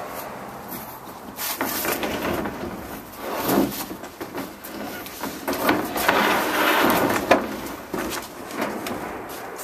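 Large plastic truck bed liner scraping, rubbing and knocking as it is dragged and lifted out of the pickup bed, in several rough, uneven passes, with a sharp knock about seven seconds in.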